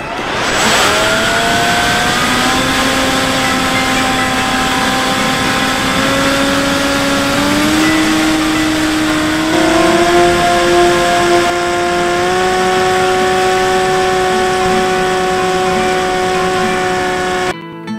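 Onboard sound of a Bix3 RC plane's electric motor and propeller in flight: a steady whine over wind rush, stepping up in pitch a few times as the throttle or airspeed changes. It cuts off suddenly near the end, giving way to acoustic guitar music.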